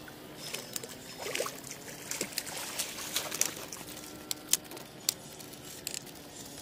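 Pond water splashing and dripping around a landing net dipped at the water's edge, with a run of irregular sharp splashes and clicks that fades out about five seconds in.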